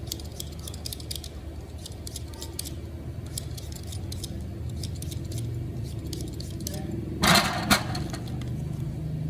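Metal cooking utensils clinking and scraping against cookware in a busy kitchen, light irregular ticks over a steady low hum. About seven seconds in comes a louder short rush of noise, then one sharp clack.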